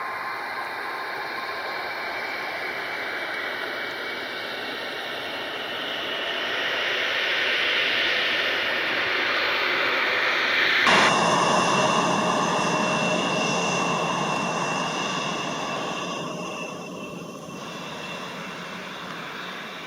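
Jet airliner engine noise swelling as an aircraft passes close, then an abrupt change about eleven seconds in to another stretch of jet noise with a steady high whine, which fades near the end.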